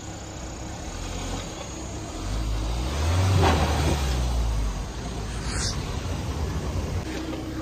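Mahindra Thar SUV's engine pulling up a steep lane, growing louder as it draws near and loudest about three and a half seconds in, then easing off.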